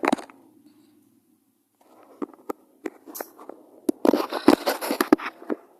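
Rustling, crackling handling noise with sharp clicks, coming in two spells, the louder one near the end.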